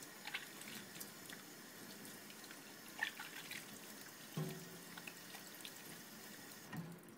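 Tap water running into a stainless steel sink while soapy hands are rubbed and rinsed under the stream, with small splashes.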